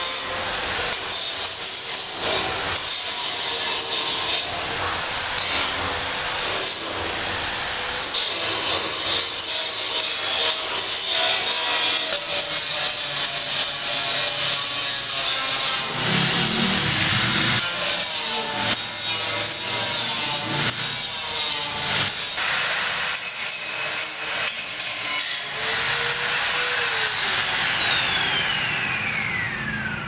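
Power tools running during building work: a high whine that repeatedly speeds up and cuts off, over steady scraping and sawing noise. Near the end one tool winds down, its whine falling steadily in pitch.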